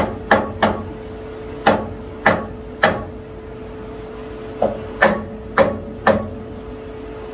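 About ten sharp hammer taps, in loose groups of two or three, seating an aluminum workpiece down onto the parallels in a milling-machine vise. A steady hum runs underneath.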